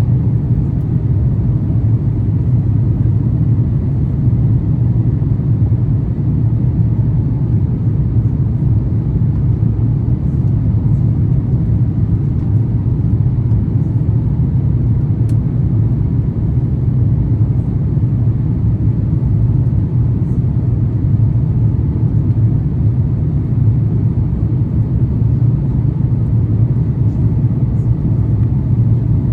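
Steady low rumble of engine and airflow noise inside the cabin of an Airbus A350-900 airliner, whose Rolls-Royce Trent XWB engines are running.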